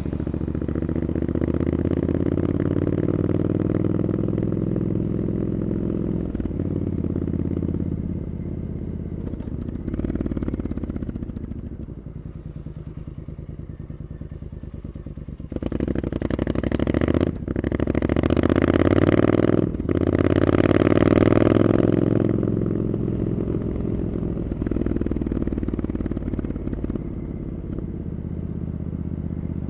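Triumph Scrambler 900's parallel-twin engine through Arrow aftermarket exhaust pipes, ridden in traffic: the engine note climbs under acceleration, drops back to a lower, quieter pull, then gets louder about halfway through as it accelerates hard with two quick gear changes, briefly interrupting the sound, before easing back to a steady cruise.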